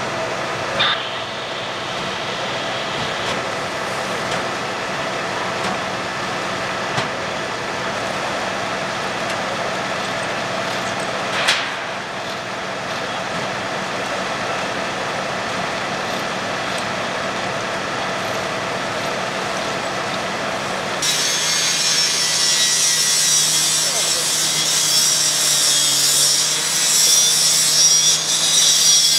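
A firefighter's gas-powered rotary saw cutting into a metal garage door: a loud, harsh grinding hiss over the saw's steady engine note, starting about two-thirds of the way in. Before it, a steady engine drone with a few sharp knocks.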